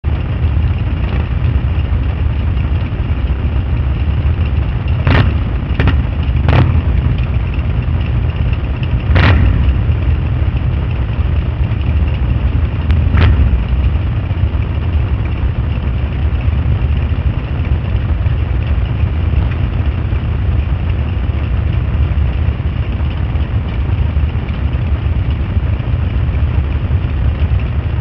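Several motorcycle engines idling together in a steady low rumble. A few sharp clicks come between about five and thirteen seconds in.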